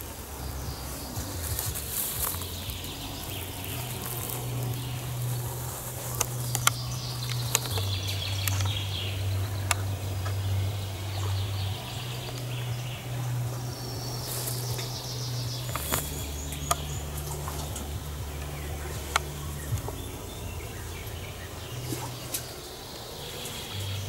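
Distant party music, heard mainly as a deep bass line that changes note every few seconds, with songbirds chirping over it and a few sharp clicks.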